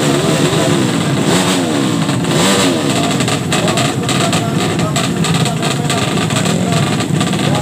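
Drag-racing motorcycle engine being revved over and over, its pitch rising and falling in quick waves, with sharp staccato revs in the middle stretch.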